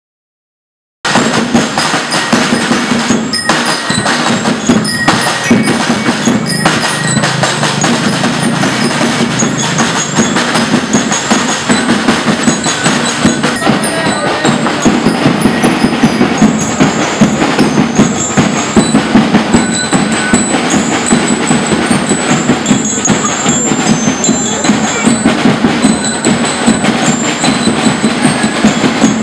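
School marching band playing, with busy drumming and bright mallet-struck bells carrying the tune. The music begins about a second in and stays loud and dense throughout.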